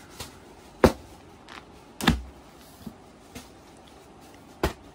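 Handling noises: a few sharp taps and knocks, the loudest about a second in, at two seconds and near the end, with fainter ticks between them.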